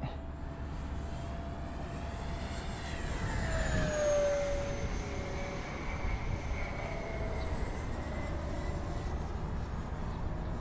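Whine of an E-flite F-15 Eagle radio-controlled electric ducted-fan jet in flight. Its pitch falls and it is loudest as it passes about four seconds in, then it settles to a steadier, fainter whine.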